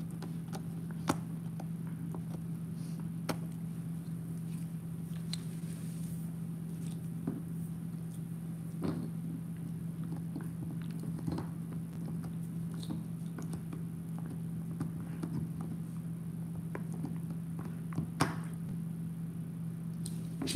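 Bernese mountain dog gnawing on a rolled chew: irregular clicks and scrapes of teeth on the chew, a few sharper than the rest, over a steady low hum.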